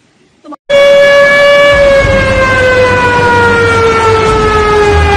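A warning siren starts abruptly about half a second in and holds one long wail that slowly falls in pitch, over a loud, steady rush of water.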